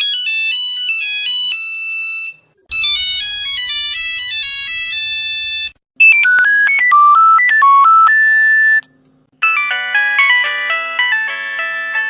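Mobile phone ringtones played one after another: four short electronic melodies of clean, high tones, each lasting about three seconds and cut off with a brief pause before the next. The third melody sits lower in pitch than the others.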